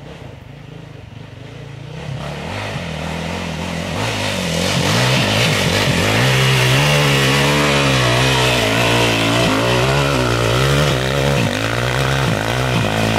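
Dirt bike engine revving hard under load on a steep dirt hill climb. It grows louder over the first few seconds, then holds loud with the revs rising and falling as the rider works the throttle.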